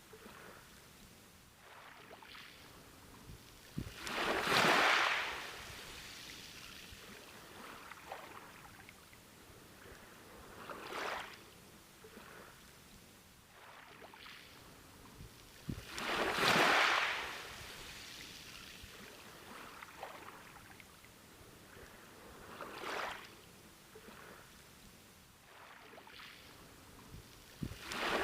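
Ocean waves breaking and washing up a beach: a surge about every six seconds, alternately bigger and smaller, each swelling and hissing away, over a steady low wash of water.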